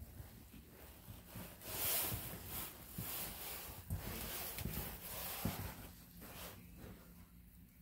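Soft footsteps and rustling handling noise from a person walking through rooms while holding a phone, with low thumps about once a second and a louder rustle about two seconds in.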